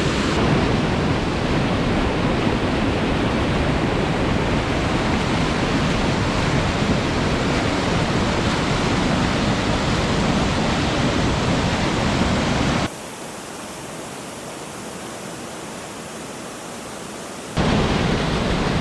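Waterfall's falling water rushing in a steady loud hiss. About thirteen seconds in it cuts abruptly to a quieter, thinner hiss for about five seconds, then the full rush returns just as suddenly.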